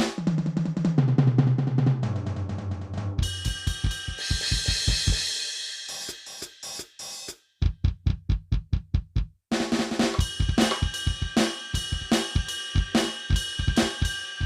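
Drum sounds from an Aroma TDX-16S electronic drum kit's sound module. A fast tom fill drops in pitch, then comes a cymbal crash. A run of evenly spaced bass-drum hits with a short break follows, and from about two-thirds of the way through a full beat with cymbals and snare.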